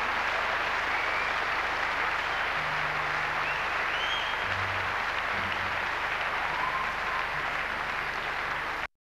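Concert audience applauding steadily at the end of a song. The applause cuts off abruptly near the end.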